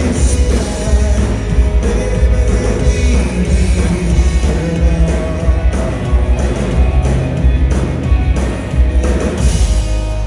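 Live rock band playing loudly: a drum kit beating steadily under electric guitars and bass, with a male lead vocal sung into a microphone. Near the end the drumming stops, leaving a held chord ringing.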